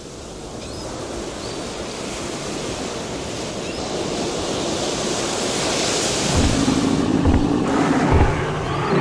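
Ocean surf washing up on a beach, a steady rush that grows gradually louder. From about six seconds in, deep low thuds come roughly once a second over a low steady drone, as the heavy footsteps of a giant dinosaur.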